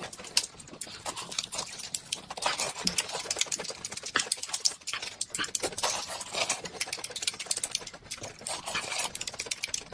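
Close-miked eating sounds: two people chewing and smacking their lips, a dense, irregular run of quick clicks and smacks.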